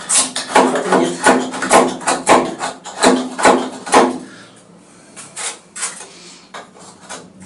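Folding knife blade shaving and paring a softwood block, cutting against the grain: quick scraping cuts about two a second for the first four seconds, then a few quieter knocks and scrapes.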